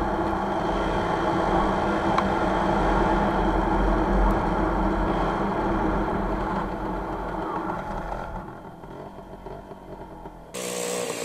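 WSK 125 motorcycle's single-cylinder two-stroke engine running under load while riding, with low wind rumble on the microphone. About eight seconds in it eases off and gets quieter, then loud running returns suddenly near the end.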